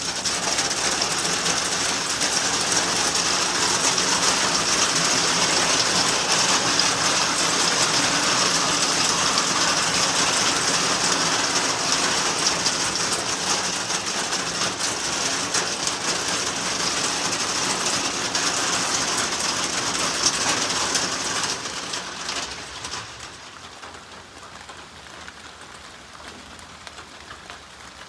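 Steady rain falling on the roof of a wooden hunting blind, heard from inside as a dense patter of drops. About 22 seconds in it drops to a much softer patter.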